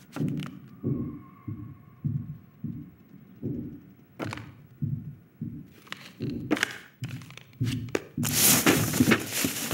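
A steady run of dull thumps, about one every half second, with a few sharp clicks among them. From about eight seconds in, a loud rushing hiss sets in.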